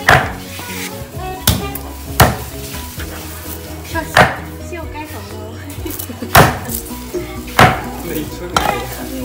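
Background music playing steadily, cut by about seven sharp knocks at irregular intervals.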